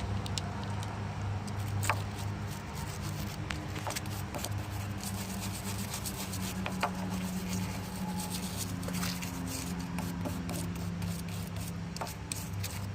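Scrubbing the positive post of a car battery clean before a new terminal goes on: repeated scratchy rubbing and rasping strokes with small clicks, over a steady low hum.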